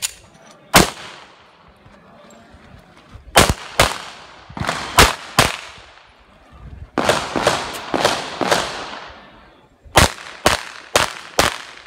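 Handgun shots fired by a competitor shooting a practical-shooting stage: a single shot about a second in, then quick pairs and short strings of shots, each followed by a brief echo off the range's concrete walls.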